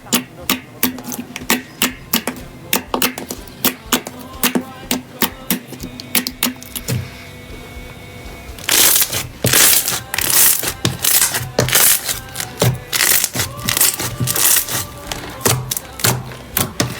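Slime being squeezed and pressed, giving sharp clicks and pops several times a second. About nine seconds in come louder crackling crunches. Faint background music plays under it.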